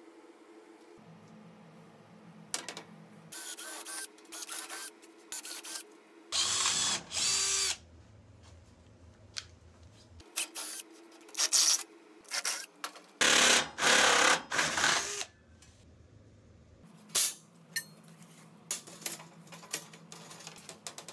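Power drill boring holes through a thin metal plate, running in short bursts of a second or two, with clicks and clatter of handling between runs.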